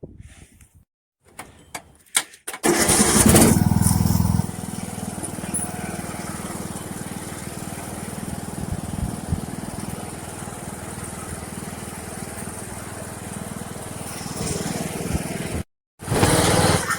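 Troy-Bilt riding lawn tractor engine starting up about two and a half seconds in. It runs loud for a couple of seconds, then settles to a steady run. There is a brief break near the end, then it is loud again.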